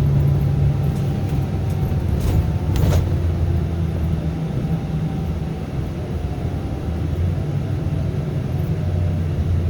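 Scania K410B coach's diesel engine running with a steady low drone whose pitch shifts slightly, as when under way. Two short bursts of noise come about two and a half seconds in.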